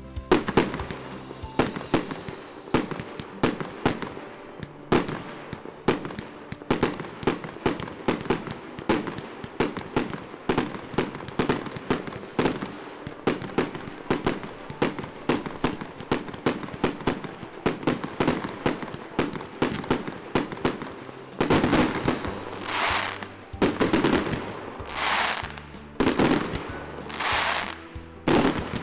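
Fireworks and firecrackers going off in a rapid run of sharp bangs, several a second. Near the end a series of hissing swells comes about every second and a half.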